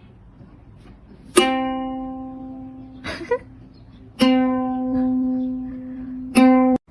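A plucked string instrument, ukulele-like, sounding the same note three times, each pluck ringing out and fading before the next, with a brief scratchy sound between the first two; the last note is cut off abruptly.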